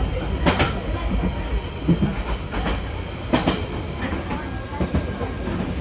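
Passenger train running at speed, heard from inside the carriage: a steady low rumble of the wheels on the track with sharp knocks as the wheels cross rail joints, the clearest about half a second in and again near three and a half seconds.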